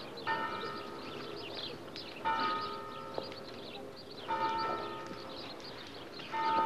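A single church bell tolling slowly: four strokes about two seconds apart, each ringing and fading before the next.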